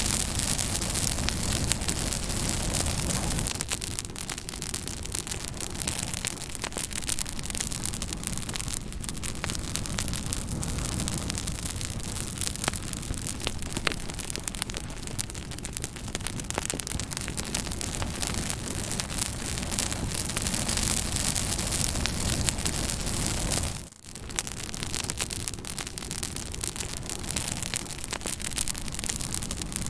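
Fire crackling: a steady hiss with many sharp pops and snaps scattered through it, dipping briefly in level about two-thirds of the way through.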